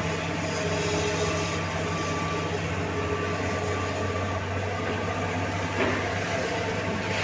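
Tata Hitachi EX-350 hydraulic excavator's diesel engine running steadily, with higher steady tones coming and going over it. A brief knock about six seconds in.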